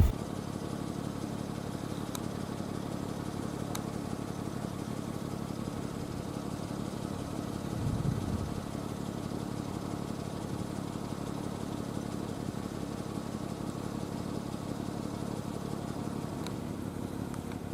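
A vehicle engine running steadily, with a slight swell about eight seconds in.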